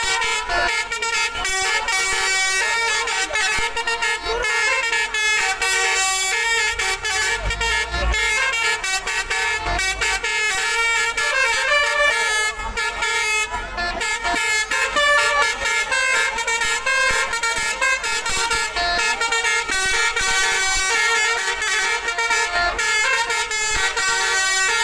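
Tour bus's multi-tone telolet horn playing a running melody, its notes switching quickly one after another without a break.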